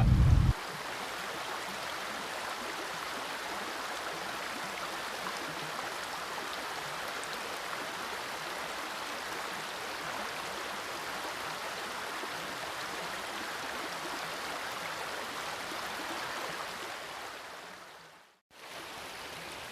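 Steady rushing of a flowing river, which fades out near the end and comes back quieter. A low car-cabin rumble cuts off about half a second in.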